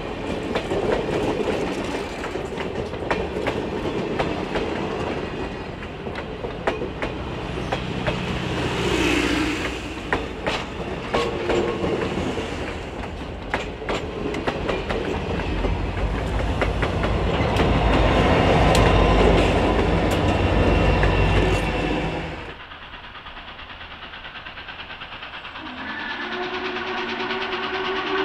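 Norfolk & Western 611, a class J 4-8-4 steam locomotive, going by with its excursion train: a heavy rumble with many sharp wheel clicks, loudest for the few seconds before it cuts off suddenly. The sound then drops to a quieter scene, and about two seconds later a chord-like whistle starts and holds steady.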